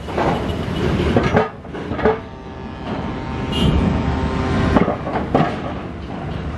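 Cars driving over a ferry's steel loading ramp: a low engine and tyre rumble with several loud metallic clanks as the wheels cross the ramp's steel plates and joints.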